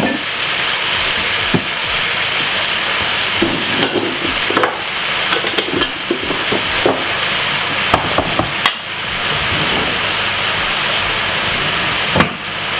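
Sliced peppers and onion sizzling steadily in hot oil in a stainless steel saucepan. A wooden spoon scrapes against the pan now and then.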